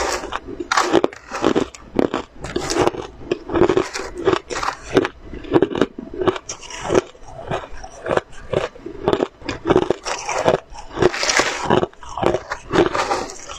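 Close-miked crunching of crushed ice being chewed, a rapid, irregular run of crisp crunches.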